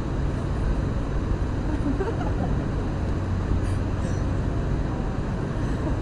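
Steady outdoor ambience with a low, even rumble, with faint voices in the background.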